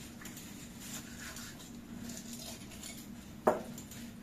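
A knife knocking once, sharply, against a plastic cutting board about three and a half seconds in, while a whole raw chicken is cut into pieces. A faint steady hum runs underneath.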